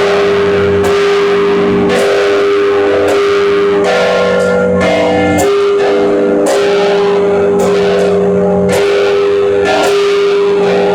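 Five church bells ringing, struck in turn about once a second. Each stroke rings on under the next, over one steady tone that holds throughout.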